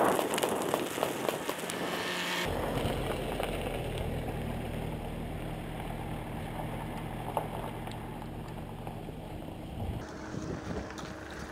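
Wind rushing on the microphone, then, from about two seconds in, a steady low motor hum that changes abruptly again near the end.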